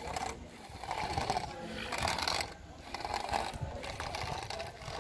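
Two small DC motors with reduction gearboxes driving a wheeled robot car across concrete, whirring in stretches broken by short pauses.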